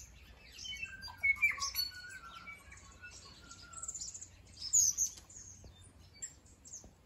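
Tui singing: a varied run of liquid, whistled notes that jump and glide in pitch, mixed with clicks, starting about a second in and fading out about five seconds in.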